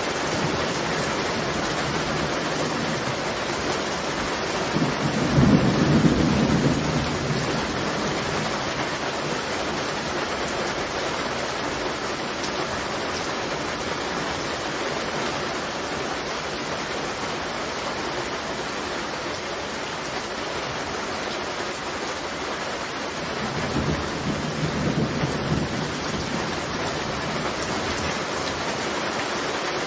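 Heavy rain falling steadily during a thunderstorm. Thunder rumbles loudly about five seconds in, and a softer roll comes later.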